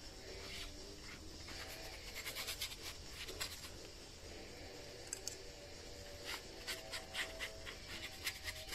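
Faint scratchy strokes of a thin paintbrush laying ink on card, in two spells of quick strokes.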